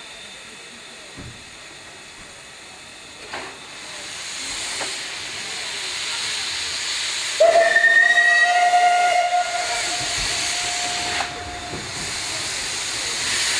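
Steam locomotives hissing steam at the cylinders, the hiss growing louder; about seven seconds in a steam locomotive whistle sounds one long blast of about four seconds, then the hiss carries on.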